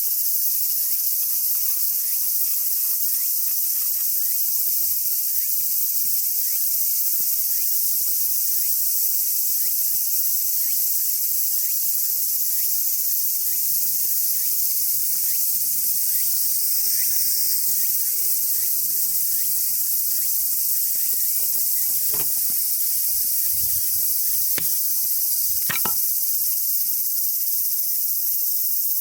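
Insects chirring in a steady, dense, high-pitched chorus, with a few sharp clicks about three-quarters of the way in.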